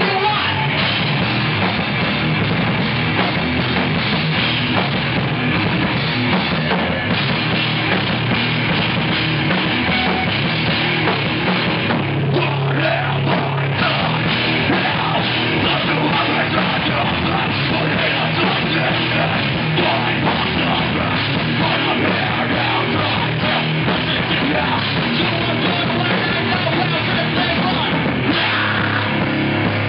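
A rock band playing live and loud in a heavy-metal style: distorted electric guitars, bass guitar and a drum kit playing without a break.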